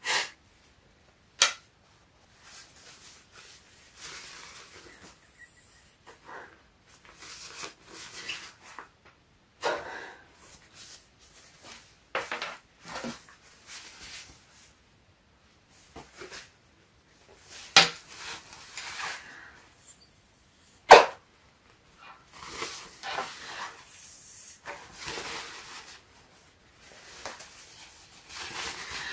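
A person breathing hard through running-gaiter fabric held against the mouth, in repeated noisy breaths, with the fabric rustling and a few sharp clicks. The breaths test whether air passes through the fabric; the white Rough Country Silkworm gaiter held near the end is minimally breathable.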